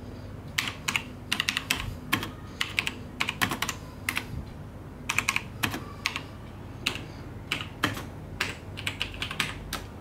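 Typing on a vintage mechanical keyboard with Cherry MX Black linear, non-clicky switches: irregular key presses, some in quick runs.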